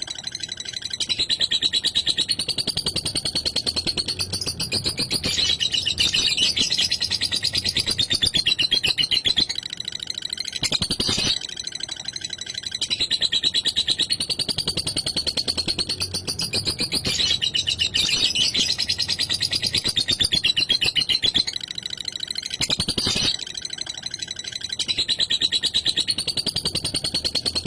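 Lovebird 'ngekek': a long, fast, rattling chatter held for about ten seconds at a stretch, with brief breaks between bouts.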